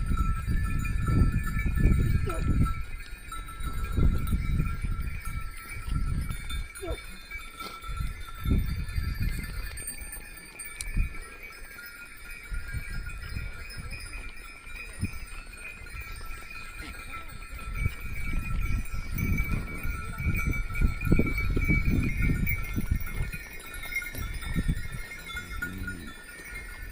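Bells on a grazing flock of sheep and goats ringing steadily, with heavy low rumbles that swell and fade every few seconds.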